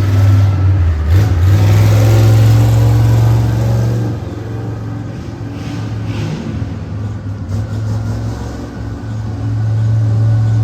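Monster truck engines running loud under load, easing off about four seconds in and building up again near the end.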